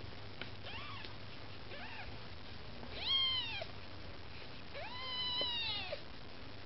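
Maine Coon kitten mewing four times, each mew rising and then falling in pitch. The first two are faint and short; the last two are louder, and the last lasts about a second.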